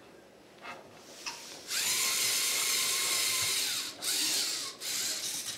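LEGO Mindstorms competition robot's electric motors whirring loudly as it drives a mission run. The whir starts about two seconds in and cuts out briefly twice as the robot changes moves.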